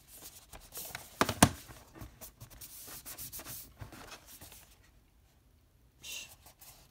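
Fingers rubbing and scraping over the surface of a metal Blu-ray steelbook case as it is handled, with two sharp clicks a little over a second in, the loudest sounds. The rubbing stops after about four and a half seconds, and a short scuff follows near the end.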